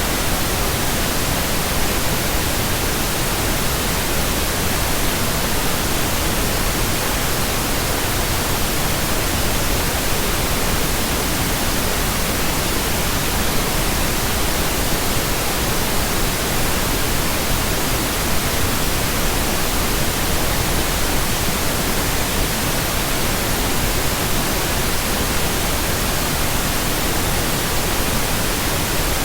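Steady synthesized pink noise: an even, unchanging hiss with no tones, breaks or other events.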